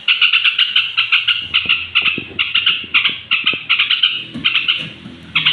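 Yellow-vented bulbul (cerucuk) chattering: fast runs of short, repeated bubbly notes, several a second, broken by brief pauses.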